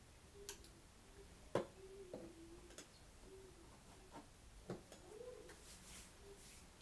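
Quiet room with a few light clicks and knocks of objects handled at a home altar, the sharpest about one and a half seconds in. A faint wavering pitched sound runs underneath.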